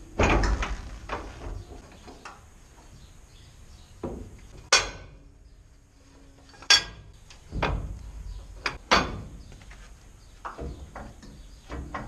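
Irregular sharp metal clanks and knocks from the latches and levers of a Pöttinger self-loading wagon's knife bank being worked by hand. The knife rack is being released so the blades can come out for sharpening.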